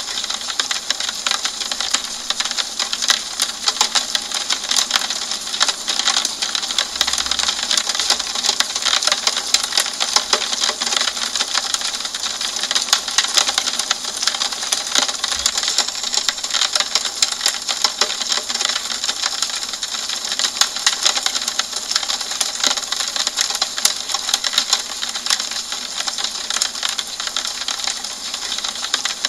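Steady rain on a window pane: a dense run of small sharp ticks from drops hitting the glass over an even hiss.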